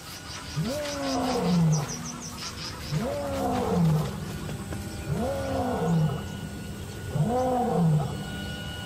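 Male lion roaring: four long calls about two seconds apart, each rising then falling in pitch. This is a territorial roar, a clear message that he is the ruler of this area.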